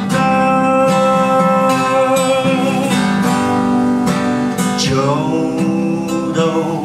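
Acoustic guitar strummed steadily under a man's singing voice, which holds one long note through the first half and then slides in pitch into the next phrase.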